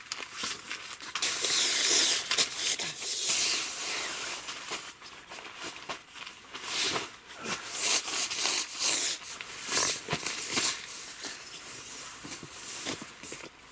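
Rustling and swishing of a non-slip sheet and the nylon tent floor as the sheet is shaken out, dragged and smoothed by hand, in many short irregular swishes that come loudest in two spells. Near the end, a folded foam sleeping mat is handled.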